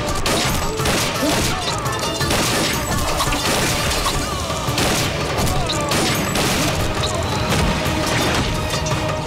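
Action-film soundtrack: dramatic background music mixed with a rapid series of pistol gunshot sound effects and impacts.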